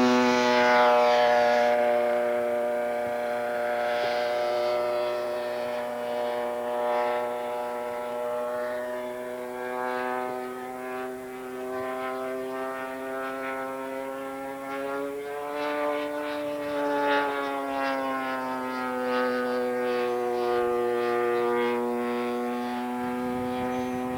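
Twin-cylinder Super Tiger 6000 glow engine of a quarter-scale RC Hawker Hurricane, turning a 22-inch propeller, running in flight. It is a steady buzzing drone, loudest near the start, and its pitch swells and then falls about two-thirds of the way through as the model passes.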